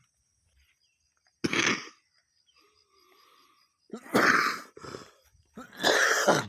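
A person coughing hard: one loud cough about a second and a half in, then two more loud coughs in the last few seconds.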